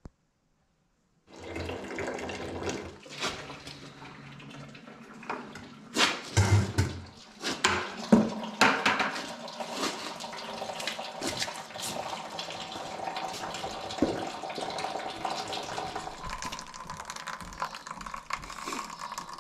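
Liquid running and splashing, with scattered knocks and clatter, loudest a few seconds in.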